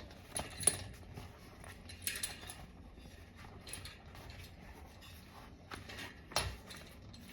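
Hand-handling noises of an inner tube being fitted into a new bicycle tire: rustling with scattered small clicks and taps, a sharp click under a second in and a duller knock about six and a half seconds in.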